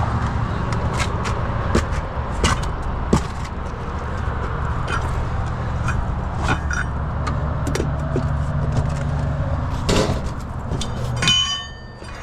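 A vehicle engine running steadily, with scattered metallic clanks and knocks over it. The engine sound drops away briefly near the end, just after a short squeak.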